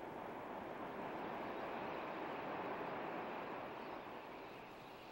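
A steady rushing noise with no tone in it, swelling toward the middle and fading away near the end.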